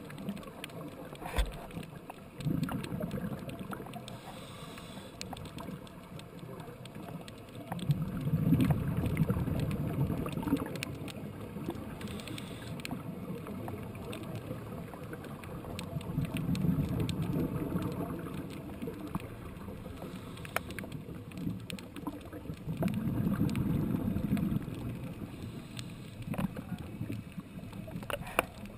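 Scuba diver's exhaled bubbles rumbling past a GoPro in its underwater housing, in four swells of a few seconds each, about seven seconds apart, over a steady underwater hiss with scattered sharp clicks.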